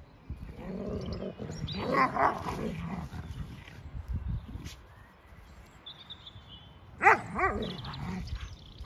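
Two dogs play-fighting, with bouts of barking and growling: one bout about two seconds in and another, louder one about seven seconds in.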